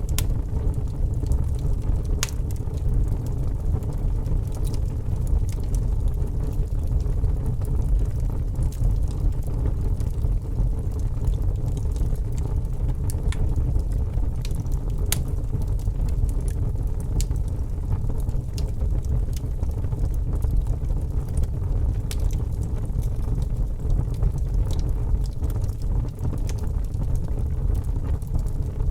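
Wood fire crackling in a fireplace, with scattered sharp pops over a steady low rumble.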